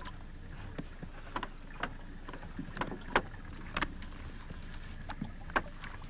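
Small boat on open water while a hooked fish is fought on a heavy, sharply bent rod: a steady low wash of wind and water with irregular light clicks and knocks, about two a second.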